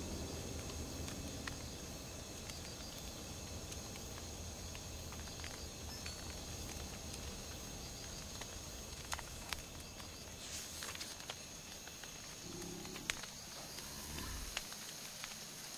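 Quiet night-time jungle ambience: a steady high-pitched insect drone over a low hiss, with scattered faint clicks and ticks. A soft low rumble swells briefly near the end.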